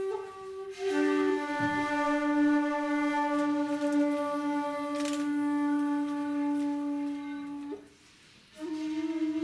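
Shakuhachi (Japanese end-blown bamboo flute) playing long held notes. About a second in it drops to a lower note that it holds for several seconds, then breaks off briefly near the end before starting another note.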